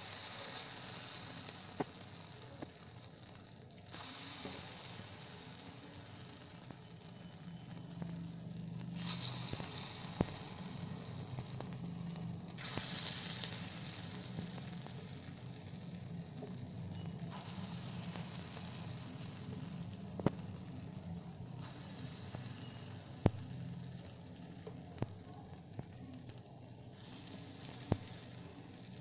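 Vegetable batter sizzling in hot oil as it is spooned into the cups of a cast-iron gunta ponganalu (paniyaram) pan. The sizzle surges with each new spoonful, about seven times, and eases between them, with a few sharp clicks in the second half.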